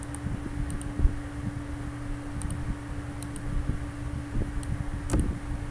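Steady low background hum, like a computer's fan, with a few faint scattered mouse clicks.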